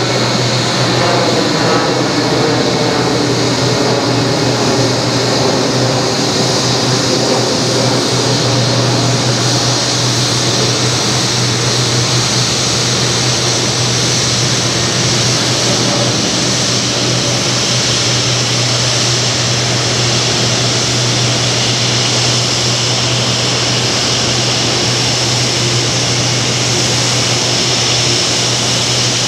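Jet airliner engines running at idle: a steady, loud rush with a low hum, with faint falling tones over the first several seconds.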